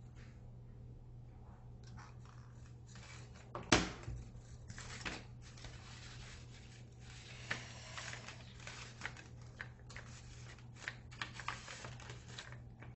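Pleated paper rustling and crinkling in irregular bursts as an accordion-folded paper rosette is pressed and shaped by hand, with one sharp knock about four seconds in. A low steady hum runs underneath.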